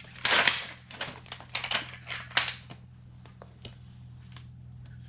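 Metal drill bits clicking and rattling as they are handled and sorted through, a quick flurry of sharp clicks over the first three seconds, then only a couple more, over a steady low hum.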